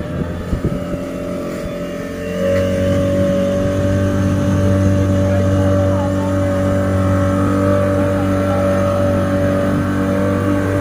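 Glass-bottom tour boat's engine running under way, a steady hum that gets louder about two seconds in and then holds.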